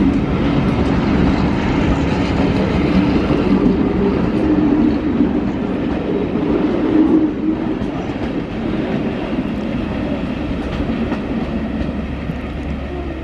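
Train on the move: the locomotive's engine running steadily with wheels clacking over the rail joints, the sound easing off a little in the second half.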